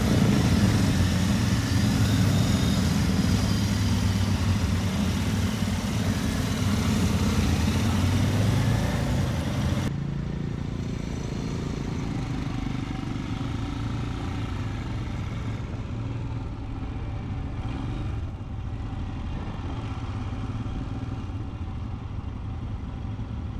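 Several motorcycle engines idling together in a group. About ten seconds in it changes to a quieter, steadier engine sound: the rider's own Royal Enfield Scram 411, an air-cooled 411cc single-cylinder, running at low speed with other bikes around it.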